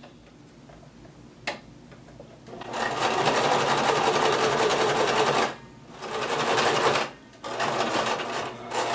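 Electric sewing machine stitching along a folded fabric belt tie. After a single click about a second and a half in, it runs steadily for about three seconds, stops briefly, then runs twice more in shorter spells.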